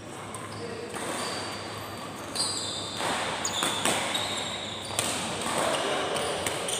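Badminton doubles rally: several sharp racket strikes on the shuttlecock, a second or more apart, and short high squeaks of shoes on the court, ringing in a large hall.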